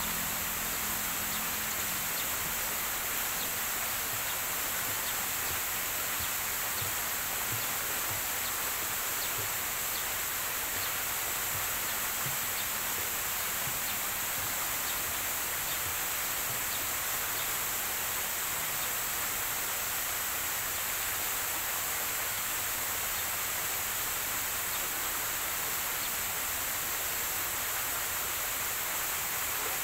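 Steady outdoor ambience: an even high-pitched hiss that does not change, with faint small ticks repeating through it.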